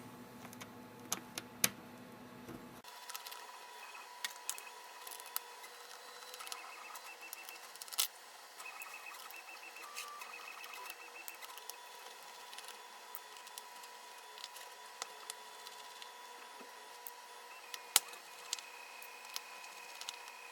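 Faint, scattered clicks and ticks of a small precision screwdriver and tools working tiny screws out of an iPod Touch's metal internal plate, with two louder clicks partway through. A faint steady high-pitched tone sits underneath.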